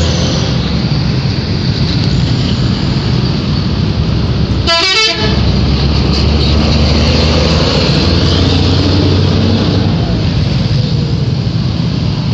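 Telolet horn of an Indonesian intercity bus sounding its multi-tone musical toot over the loud, steady noise of the bus's engine.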